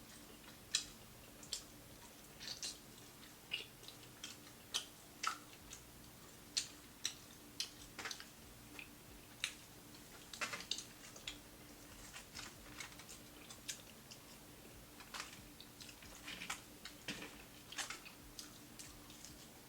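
Close-up eating sounds of crispy fried food being bitten and chewed: irregular sharp crunches and crackles, about one or two a second, over a faint steady hum.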